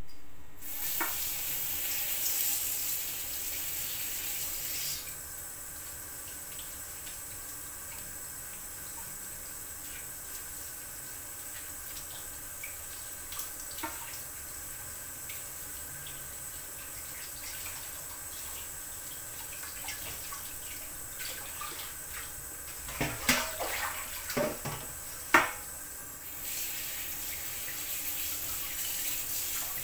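Kitchen tap running into a stainless steel bowl of kale while hands rub and turn the wet leaves. The flow drops to a thin stream about five seconds in and opens up fully again near the end, with a few sharp knocks just before.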